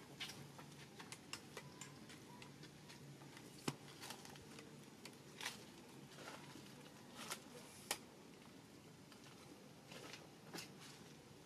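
Faint background with scattered small clicks and ticks over a low steady hum, the sharpest clicks about four and eight seconds in.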